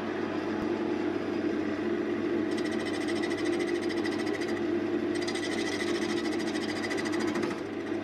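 Wood lathe motor running steadily with a wooden blank spinning in the chuck. A hand-held turning tool cuts into the end grain of the spinning wood in two passes, from about two and a half seconds in and again from about five seconds in, adding a rasping cutting sound over the motor hum.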